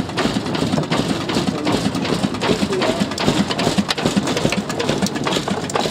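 Diesel engine of a 1940 Ruston & Hornsby narrow gauge locomotive running with a dense, irregular mechanical clatter.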